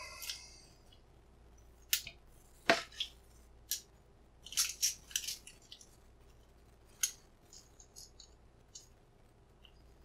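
Small metal clicks and scrapes from a disassembled steel padlock being worked apart by hand, its cylinder parts drawn out of the body. The clicks come irregularly, a cluster in the middle and fainter ticks near the end.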